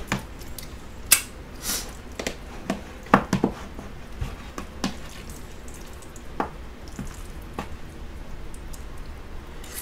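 Close-miked eating sounds: a spoon clicking and scraping in a plastic tub of rice and stew, with wet chewing and mouth sounds. These come as scattered sharp clicks and short squishy bursts over a low steady hum.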